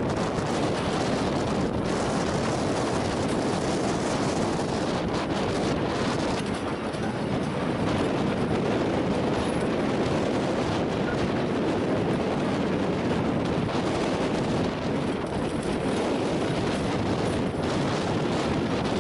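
Heavy tracked excavator running under load while its hydraulic demolition pulverizer crushes concrete railway sleepers: a steady, dense machinery noise mixed with the crunch and grinding of breaking concrete.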